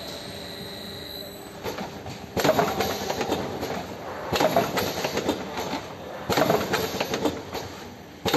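Automatic cartoning machine running: a dense mechanical clatter of clicks and knocks that comes in repeated stretches about every two seconds, starting a couple of seconds in.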